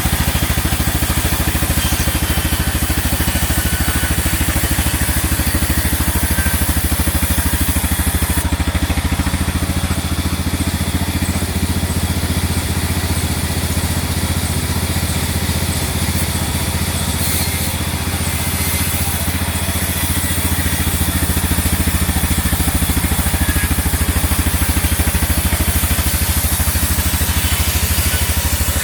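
Sawmill machinery running steadily with a constant engine-like drone; the low hum shifts slightly around the middle and then settles back.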